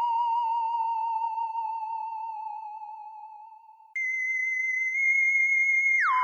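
Sci-fi 'alien' electronic tone, theremin-like with a fast wobble in pitch, holding a steady note that slowly sinks and fades away. About four seconds in a higher tone cuts in suddenly, holds, then swoops down steeply in pitch near the end.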